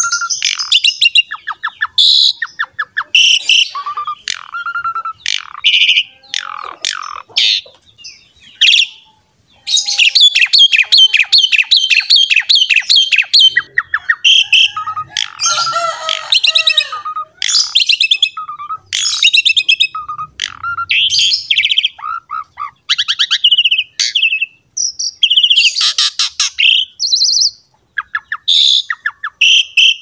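Asian pied starling (jalak suren) in full, continuous song: a varied run of clear whistles, harsh chattering notes and squawks, with a quick series of sharp clicking notes about ten seconds in.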